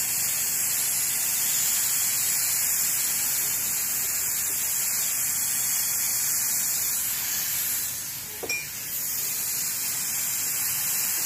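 Dental suction hissing steadily as air is drawn through the suction tip held at the patient's mouth, with a short dip and a small click about eight seconds in.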